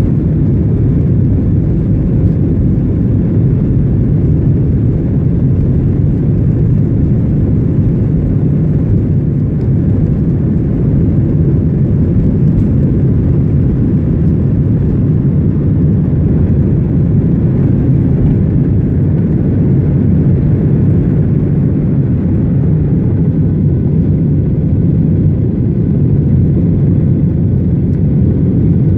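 Boeing 737-800's CFM56-7B turbofan engines at takeoff thrust, heard inside the cabin over the wing: a steady, loud roar heaviest in the low end, through the takeoff roll and liftoff.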